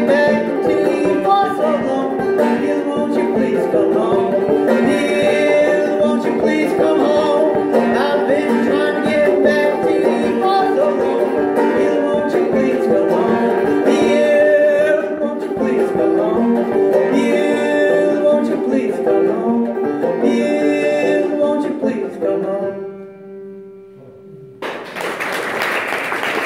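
Banjo played solo, a run of picked notes that stops about 23 seconds in, its last notes ringing out and dying away. Audience applause breaks out near the end.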